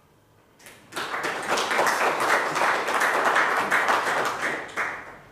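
Audience applauding for about four seconds, starting about a second in and fading away near the end.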